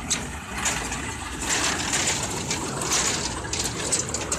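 A children's mini ride train running on its track: a steady rattle and rumble with repeated sharp clicks, swelling a little louder in the middle.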